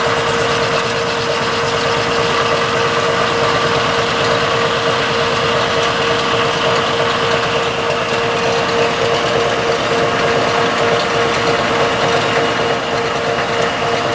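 Metal lathe running steadily with a constant hum, its tool facing off the end of a spinning ABS plastic bar.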